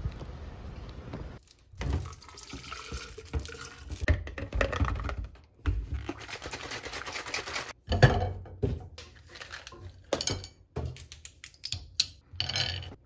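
Making a drink in a plastic cup on a stainless-steel kitchen counter: liquid pouring and sloshing, then a sharp knock on the counter about eight seconds in. Near the end, a run of light clicks as nuts are set on a ceramic plate.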